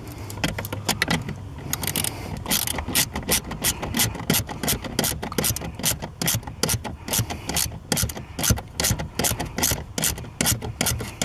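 Ratchet wrench clicking in quick, uneven runs as the accelerator pedal's mounting screws are tightened.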